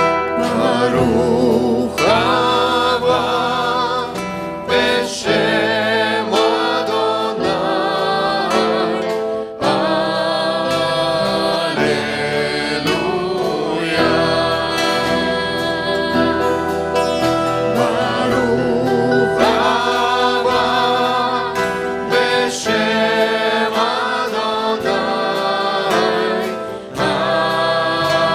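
Group of voices singing a worship song with acoustic guitar accompaniment.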